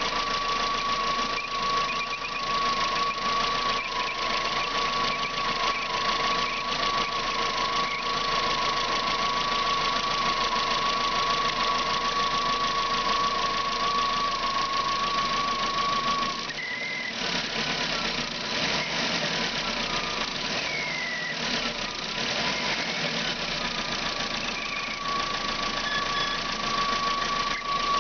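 Car engine idling with a steady high-pitched whistle over it, which the owner links to the water pump. The whistle drops out a little past halfway and comes back near the end.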